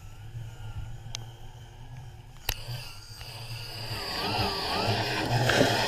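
Remora Solo hull-cleaning machine running, its motor humming steadily with a wavering whine as its backing pad sands the coppercoat antifouling on a boat hull. A couple of sharp clicks come in the first half, and the sound grows louder from about four seconds in.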